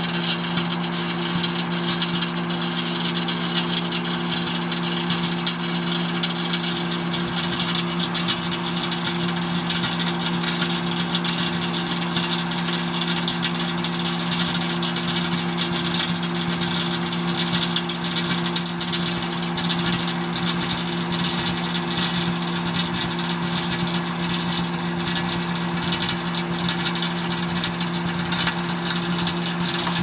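Microwave oven running with a steady hum, over a continuous dense crackle from a de-glassed 12W6 vacuum tube arcing and burning inside it.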